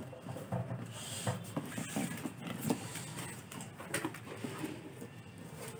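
Cardboard box flaps being opened and paper inserts handled: irregular rustles, scrapes and small knocks.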